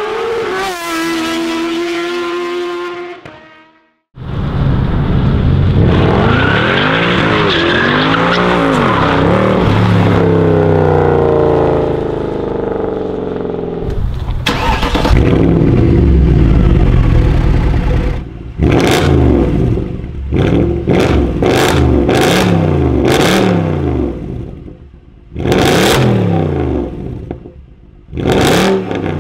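A short pitched intro sound, then a Mercedes-Benz C63 AMG's V8 bursting into life about four seconds in. It is revved up and down a few times, then given a string of quick, sharp throttle blips near the end.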